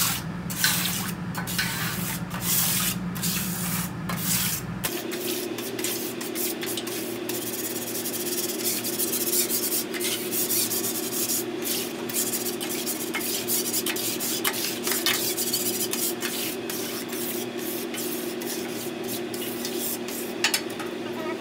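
A scouring pad on a handled holder scrubbed back and forth over a commercial flat-top griddle's steel plate through a coat of grill cleaner: repeated rasping rubbing strokes. A steady hum runs underneath and changes pitch about five seconds in.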